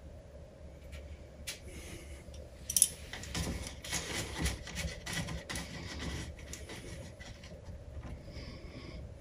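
Scraping, rubbing and small clicks of hands and metal hardware as the nuts holding a pinball machine's dot-matrix display panel in its backbox are loosened by hand, with one sharp click about three seconds in.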